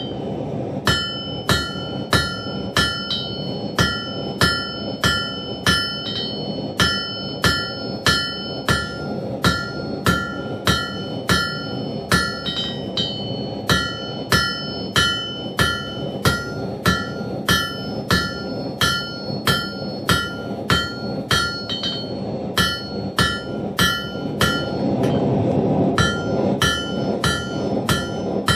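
Blacksmith's hammer striking hot steel on an anvil in a steady rhythm of roughly three blows every two seconds, each blow leaving the anvil ringing with high, bell-like tones; the anvil rings freely because it is not yet remounted. A steady rushing noise runs underneath and swells briefly near the end.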